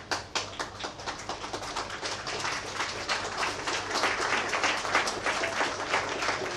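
Audience applauding: a few scattered claps at first, thickening into dense steady applause about halfway through.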